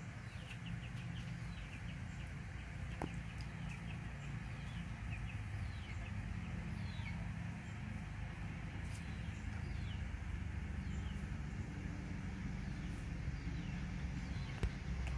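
Birds chirping in short falling notes now and then, over a steady low hum.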